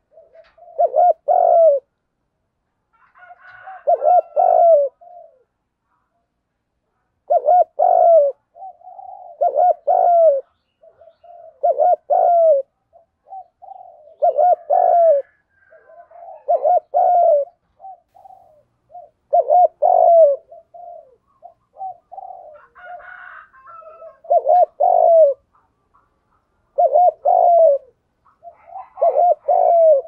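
Spotted dove (cu gáy) cooing close by, giving repeated coo phrases every two to three seconds.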